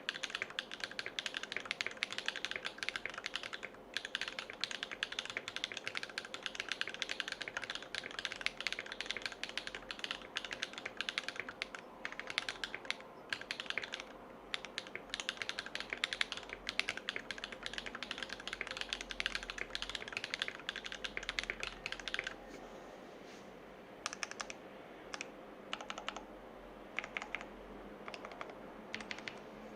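Fast typing on a Percent Canoe mechanical keyboard with lubed Everglide Dark Jade tactile switches, each keystroke bottoming out with a loud clack. About three quarters of the way through the rapid run stops, leaving a few scattered single key presses.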